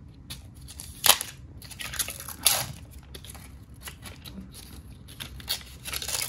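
Plastic protective film crackling and rustling as hands handle a white laptop power adapter and peel the film off. There are a few sharp crackles, the loudest about a second in and about two and a half seconds in, and more near the end.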